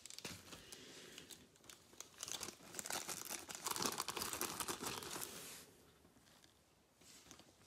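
Thin plastic crinkling and rustling as a trading card is handled and slid into a clear plastic card sleeve. The crackle is densest in the middle and thins out to faint handling noise near the end.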